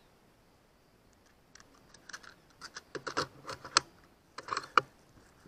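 Irregular run of light mechanical clicks and rattles from handling an FX Impact M4 PCP air rifle between shots. The clicks start about a second and a half in and end with two sharper clicks near the end.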